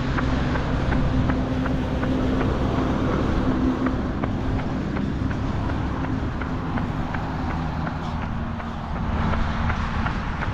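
A runner's footsteps, about three a second, over a steady rumble of motor traffic with a low engine hum.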